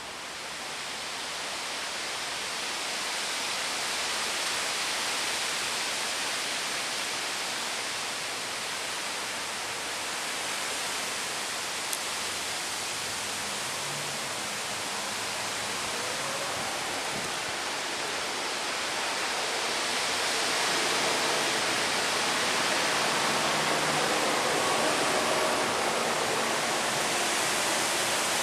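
Wind rushing through trees: a steady hiss that builds over the first few seconds and swells again about two-thirds of the way through as a storm approaches. There is one small click partway through.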